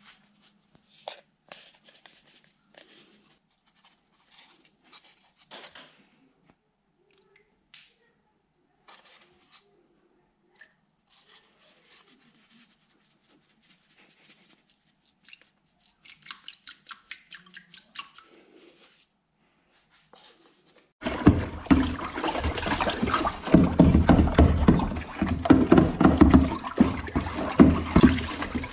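Scattered light clicks and drips, then about 21 seconds in a loud rush of running or spraying water starts abruptly and keeps going.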